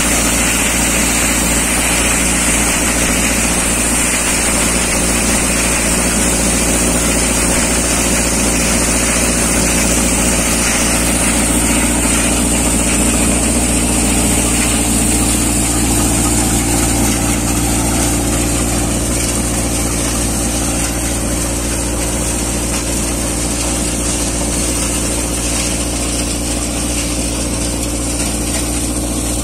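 Yoddha multicrop thresher running steadily, driven through the PTO by a Swaraj 724 XM Orchard tractor whose engine holds a constant speed under load. The threshing drum and blower add a steady machine hum, which eases slightly about two-thirds of the way through.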